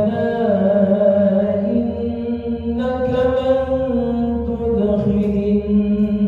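An imam's voice chanting Quran recitation in a long melodic line. The notes are drawn out and slide between pitches, with no pause.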